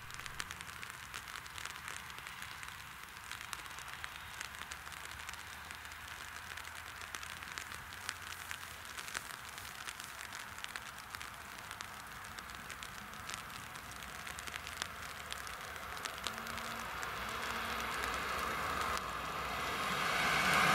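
A steady crackling, pattering hiss like light rain throughout, while an InterCity train hauled by a class 101 electric locomotive approaches, its running noise growing steadily louder over the last several seconds.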